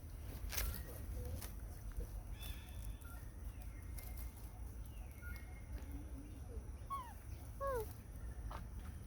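Monkeys giving short, sharply falling squeaks, a couple near the end, among scattered clicks and rustling.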